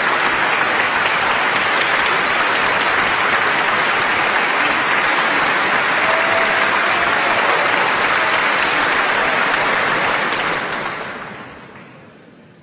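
Large audience applauding steadily, fading away near the end.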